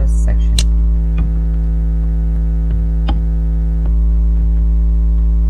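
Steady electrical mains hum, a low buzz with a ladder of overtones, carried on the recording. A few short clicks of computer keys and mouse being worked sound over it.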